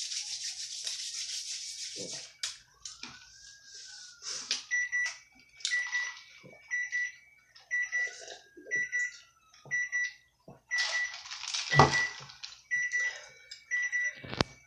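Close-miked chewing and mouth noises from eating pizza. From about five seconds in they are joined by a repeating electronic beep, a short high tone about one and a half times a second.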